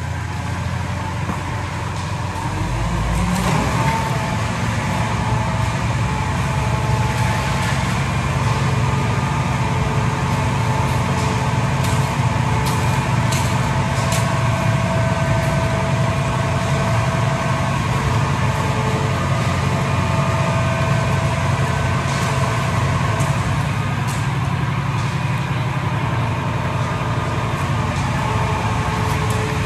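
Concrete mixer lorry's diesel engine running steadily, with a few scrapes and knocks of shovels and rakes working the wet concrete.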